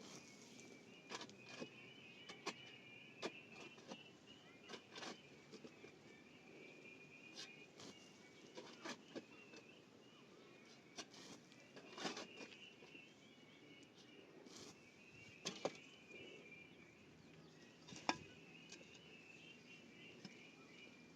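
Insects trilling steadily at a high pitch, with scattered sharp clicks and knocks at irregular intervals, the loudest about twelve and eighteen seconds in.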